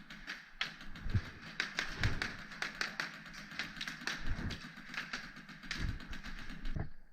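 Rapid, irregular tapping and clicking, several taps a second, with a few low thumps between them; it stops abruptly near the end.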